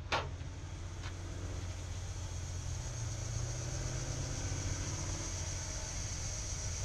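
Lit propane gas grill burners running with a steady low rumble and a faint high hiss. Metal tongs click twice on the grate near the start as the chicken is moved.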